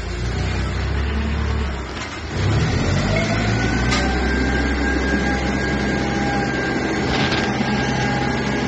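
A 2-ton diesel forklift's engine running steadily, picking up and getting louder about two and a half seconds in, with a steady whine alongside from then on.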